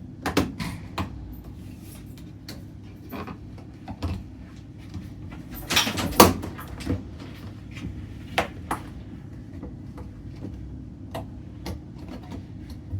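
Scattered clicks, knocks and scrapes of a screwdriver and hands working the rubber door boot seal of a front-loading washer back over the edge of the cabinet's door opening. The loudest knock comes about six seconds in, over a steady low hum.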